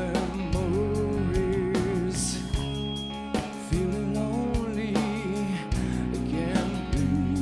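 Live rock band playing a ballad: a male lead voice sings a wavering, held melody into the microphone over electric guitar, bass and a steady drum beat.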